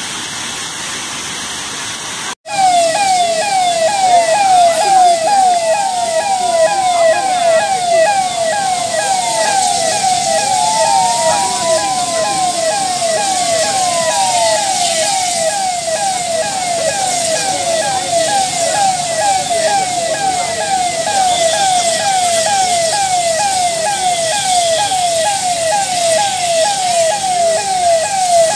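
Emergency-vehicle siren sounding a fast, evenly repeating falling yelp, with a second siren wailing slowly up and down about 5 to 14 seconds in. Before it starts, a steady rushing noise cuts off abruptly a couple of seconds in.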